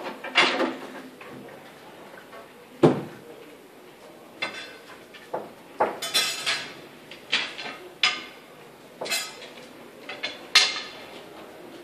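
Pool balls clacking against one another as they are taken from their box and set out on the table: a run of sharp, ringing clicks at irregular intervals, with one duller thud about three seconds in.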